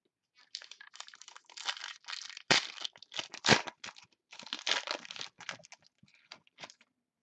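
A pack of 2012 Momentum football cards being torn open by hand: the wrapper crinkles and tears, with two sharp, loud rips about two and a half and three and a half seconds in, then softer rustling as the cards are slid out.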